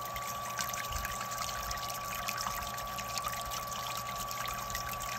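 Brewing liquid spraying from a spreader head onto the foamy surface of the mash, splashing steadily, with a thin steady whine underneath.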